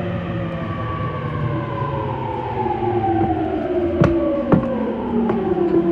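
Traction-motor and inverter whine of a JR E231-800 series commuter train, heard from the car directly above the motors: several tones fall steadily in pitch as the train brakes, over the running noise of the wheels. Two sharp clacks come about four seconds in.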